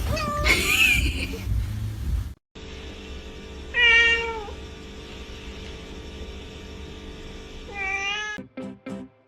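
A cat meowing three separate times, each a single drawn-out call bending in pitch. Plucked guitar music starts near the end.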